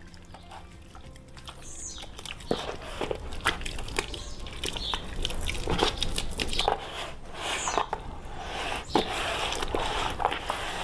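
Hands mixing raw pork belly in a wet cachaça-and-spice marinade in a plastic bowl: irregular squelching and slapping of the meat, with taps against the bowl. It gets busier after about two seconds.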